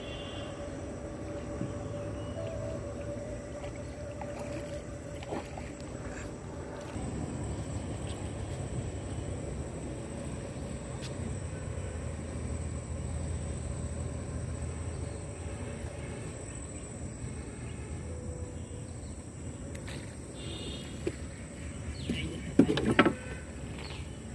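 A boat moves slowly along a riverbank, with a steady low hum and a thin, steady, high insect drone. About two seconds before the end comes a short, loud cluster of knocks.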